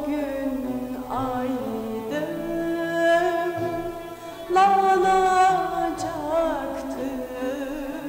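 A woman sings a slow Turkish song over instrumental accompaniment, holding several long notes with vibrato.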